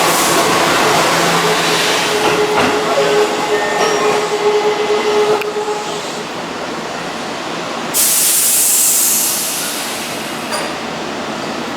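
Keihan electric train running at the platform, with a steady high-pitched squeal over the rumble that breaks off about five and a half seconds in. About eight seconds in comes a sudden hiss of air lasting over a second.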